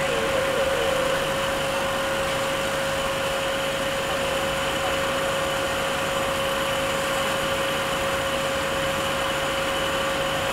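Steady drone of industrial plant machinery: an even hum with a constant mid-pitched whine over it.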